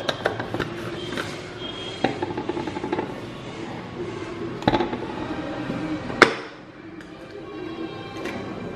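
Plastic clicks and knocks from a personal blender's cup as its blade lid is screwed on and the cup is handled on the counter, the sharpest knock about six seconds in, over soft background music.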